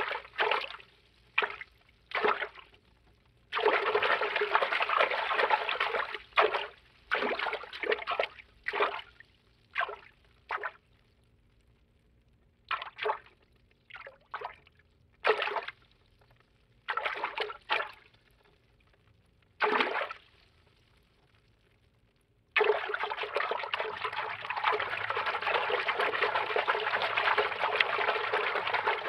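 Cartoon water-movement foley: moving, swishing water, with several seconds of continuous churning water about four seconds in and again over the last six seconds, and a run of short separate swishes with pauses between them in the middle.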